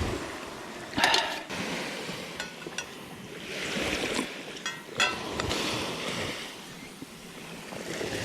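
Small sea waves washing onto the shore, swelling and falling away slowly, with a few short clicks or knocks about a second in and again around five seconds.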